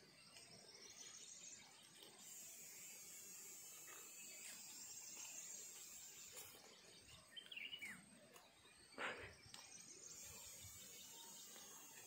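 Near silence: quiet paddy-field ambience with a steady high-pitched insect drone. A short bird chirp comes about seven and a half seconds in, and a brief sharp sound about nine seconds in.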